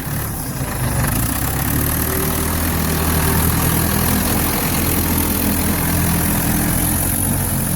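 Ford 755B backhoe's diesel engine running steadily at a low, even speed.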